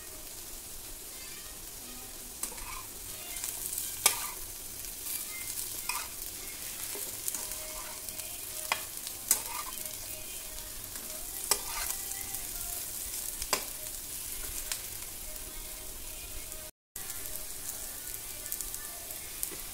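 Diced boiled potatoes frying in oil in a nonstick pan, a steady sizzle, while a steel spatula stirs and tosses them, with sharp taps and scrapes against the pan every second or two. The sound cuts out for a moment near the end.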